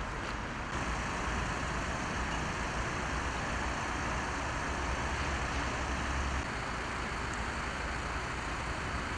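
Steady road traffic noise with a low vehicle engine rumble that steps up about a second in and drops away about six seconds in.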